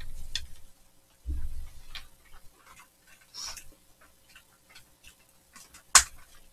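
Scattered small clicks and crackles from flaky croissant pastry being torn, handled and eaten, with low thuds near the start and about a second and a half in. One sharp click stands out near the end.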